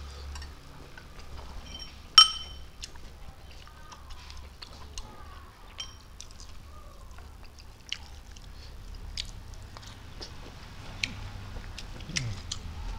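Eating by hand: soft chewing with scattered small clicks and smacks, and one loud ringing clink of a utensil against a dish about two seconds in. Near the end a wet smack of fingers being licked.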